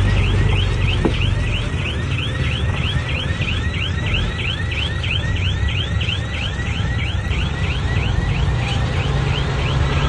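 Komatsu bulldozer working: a low engine rumble under a rapid, regular series of short high squeaks, about three a second.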